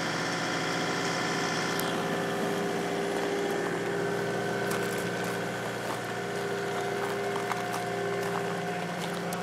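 Bobcat T300 compact track loader's diesel engine running steadily while the loader drives with a car on its forks.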